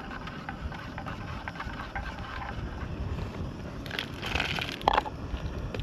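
Wind buffeting the microphone as a fluttering low rumble. About four seconds in there is a brief scraping noise, then a sharp click.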